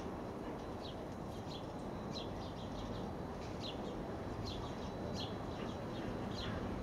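Small birds chirping in quick short calls over a steady low rumble of container freight wagons rolling away along the track.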